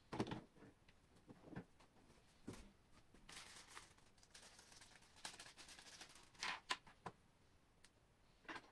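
Faint handling noise from monitor parts and packaging: a knock just after the start, rustling of packaging around the middle, then a few sharp clicks and a knock near the end.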